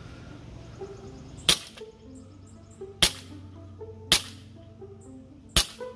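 ASG B&T USW-A1 gas blowback airsoft pistol firing four single semi-auto shots into a chronograph, each a sharp crack, about a second to a second and a half apart.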